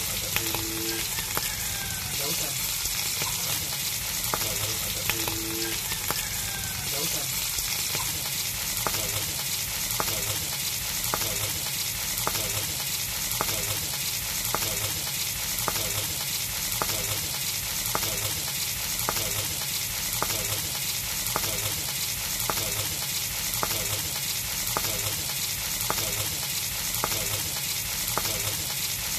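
Dried salted fish (tuyo) frying in shallow oil in a wok: a steady sizzle, with faint regular ticking through the second half.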